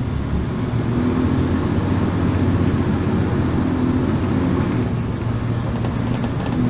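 Volvo Super Olympian double-decker bus's diesel engine running under way, at a fairly steady pitch, with road and cabin noise. It grows slightly louder in the first second or so, then holds.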